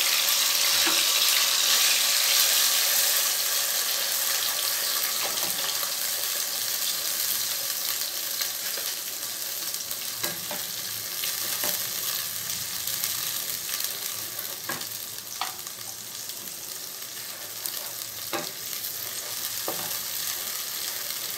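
Fresh onion and tomato paste sizzling in hot mustard oil in a kadai while being stirred with a wooden spatula. The sizzle is loudest at first and slowly dies down, and in the second half the spatula knocks against the pan several times.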